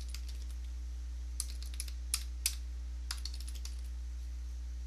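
Typing on a computer keyboard: a scattered run of keystrokes, over a steady low hum.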